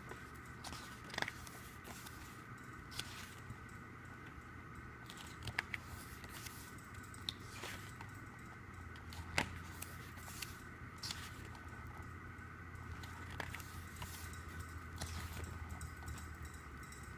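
Album photo book being handled and its pages turned: scattered soft paper rustles and light clicks over a steady background hum.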